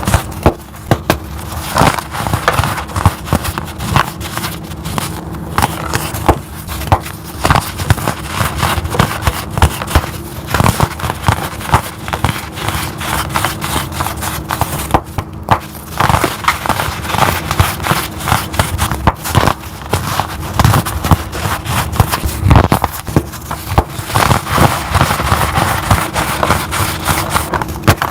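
Blocks of chalk being crushed by hand in a continuous, crunchy crackling, with a brief lull about halfway through.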